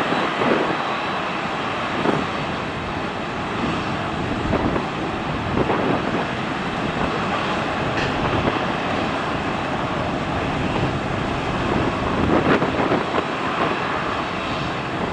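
Jet airliner's engines running at taxi power as the wide-body aircraft rolls past, a steady rumble and hiss with a few brief louder swells.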